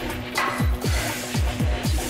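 Background electronic music with a steady, fast kick-drum beat, about four beats a second.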